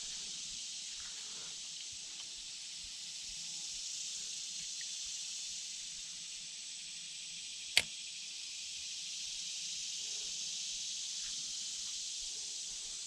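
Steady high-pitched hiss of creekside outdoor ambience, slowly swelling and fading, with a single sharp click about eight seconds in.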